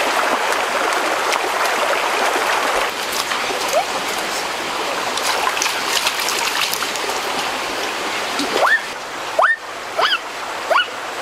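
Shallow stream running and splashing over rocks, a steady rush of water. Near the end a series of short rising whistles comes in, several in a row about half a second to a second apart.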